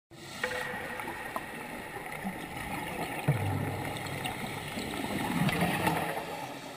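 Water gurgling and bubbling in a steady wash, with scattered small clicks, starting to fade out near the end.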